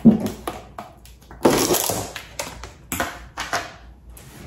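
A plastic food-storage container is set down on a stone counter with a knock. Its snap-on lid is then pried off, with about half a second of crackling plastic, followed by a few lighter clicks and knocks.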